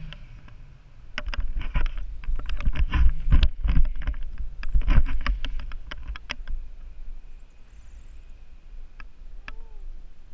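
Wind rushing and buffeting over the camera's microphone in paragliding flight, a heavy low rumble with a dense run of crackles and clicks for the first several seconds, then a steadier rush.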